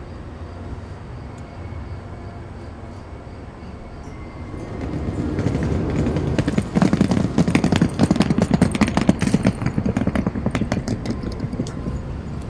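A train rumbling in, its wheels clattering rapidly over the rails. The rumble swells about halfway through, the clatter is loudest in the middle, then fades near the end.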